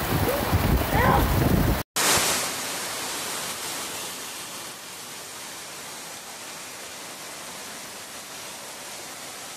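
Steady hiss of heavy rain and floodwater rushing down a flooded street. It breaks off for an instant about two seconds in, then carries on a little quieter.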